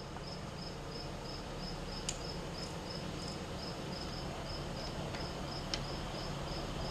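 Cricket chirping steadily, about four chirps a second, over a low steady hum, with a few faint clicks.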